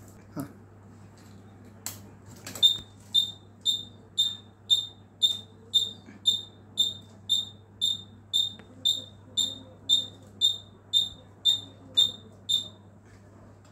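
High-voltage breakdown tester's buzzer beeping, a short high beep about twice a second, for about ten seconds while the high voltage is on during the timed test, then stopping. Two clicks come before the beeping, and a low steady hum runs underneath.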